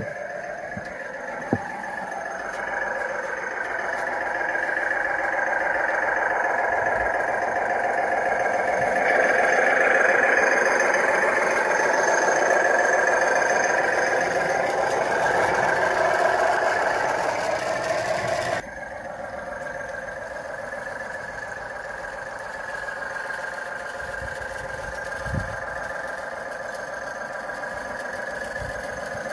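Class 37 'growler' diesel sound from the model's sound card, playing through the onboard speaker of a radio-controlled Piko DB218 G-scale locomotive as it runs. The engine note builds up as if under power, then drops abruptly about two-thirds of the way through to a quieter, steady running note.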